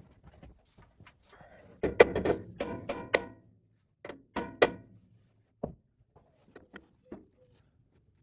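Hammer blows driving a part of a Massey Ferguson 204 forklift's steering assembly back into place: a quick run of about six strikes with a short metallic ring, two more a second later, then a few lighter, spaced-out taps.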